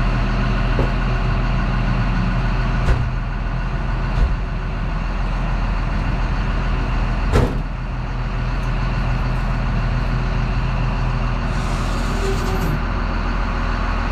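Wheel loader's diesel engine idling steadily, with a few sharp clanks and knocks as the overhead door of the salt shed rolls up.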